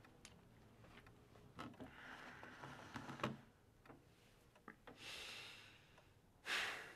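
Quiet room with faint rustling and a few light clicks, then a short, loud breath out near the end.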